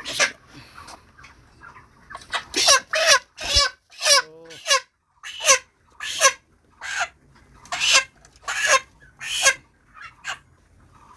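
Broiler chickens calling: a run of short, loud squawks, about one every half second to second, with a brief pause near the middle.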